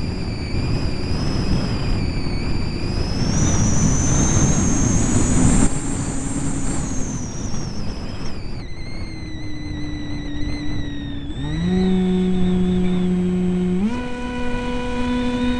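RAY 2835/16 brushless electric motor and propeller of an EasyStar RC plane whining in flight, with a rush of wind over the onboard microphone. The pitch rises and falls in the first half, drops sharply about halfway through, then steps up twice near the end as the throttle is opened.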